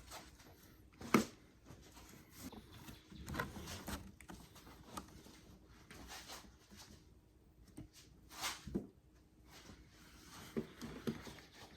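Faint handling noise: scattered light knocks, taps and rustles, with a sharper tap about a second in and a few louder knocks past the two-thirds mark.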